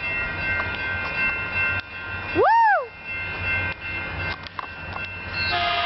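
Caltrain passenger train passing with a steady low rumble and several steady high-pitched tones. About two and a half seconds in, a man lets out a loud rising-and-falling "woo!" whoop.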